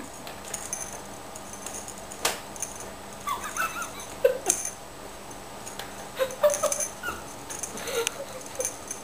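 Two domestic cats wrestling on an upholstered office chair: scuffling and sharp knocks, with short cat cries now and then through the fight.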